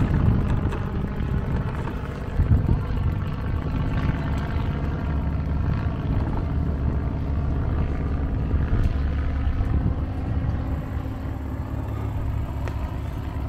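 Wind buffeting the microphone of a camera carried on a moving bicycle: a steady low rumble.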